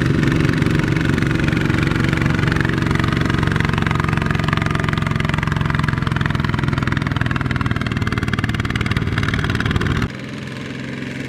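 Two-wheel walking tractor's single-cylinder diesel engine running steadily under load while it pulls a loaded trailer through a muddy rice field. About ten seconds in, the sound drops abruptly to a quieter engine sound.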